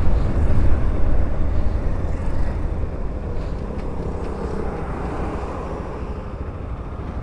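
Bajaj Pulsar NS200 single-cylinder motorcycle running while being ridden, its engine rumble mixed with wind rush on the microphone, growing gradually quieter.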